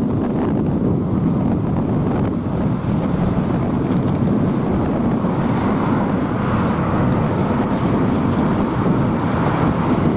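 Boeing 747's four turbofan engines, a steady low rumble during the takeoff and climb-out, with wind buffeting the microphone.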